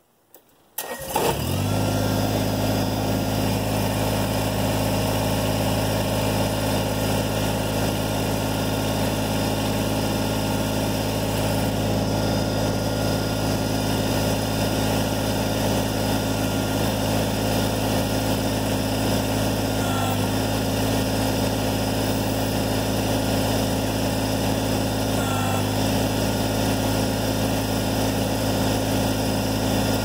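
Kubota BX23S tractor's three-cylinder diesel engine starting about a second in, then running at a steady, even speed.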